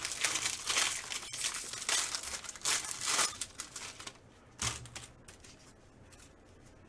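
Foil wrapper of a baseball card pack being torn open and crinkled by hand, dense crackling for about the first three seconds and one more short crinkle near five seconds in.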